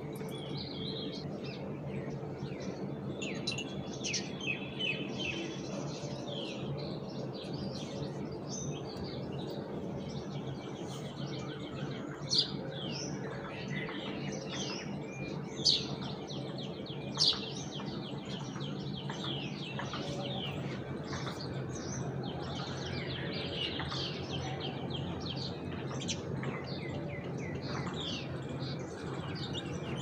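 Wild birds chirping and twittering outside, with many short high calls overlapping throughout and a few louder single chirps about midway. A steady low hum runs underneath.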